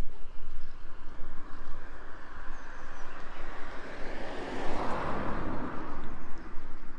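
A road vehicle driving past, growing louder to a peak about five seconds in and then fading away.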